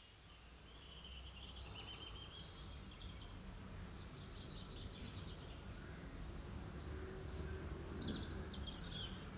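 Faint background of small birds chirping in short high twittering runs, one from about half a second to two and a half seconds in and another near the end, over a low steady hum.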